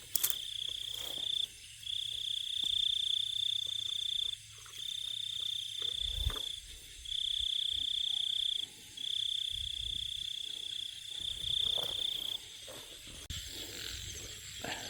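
A calling insect trilling on one high pitch in bursts of one to two seconds with short gaps, six times over, with faint low knocks underneath.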